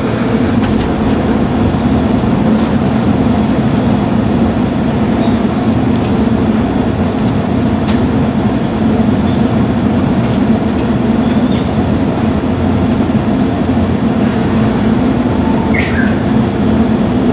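A steady low rumble fills the whole stretch. Over it come a few faint, brief calls from a Japanese bush warbler (uguisu), the clearest a short falling call near the end.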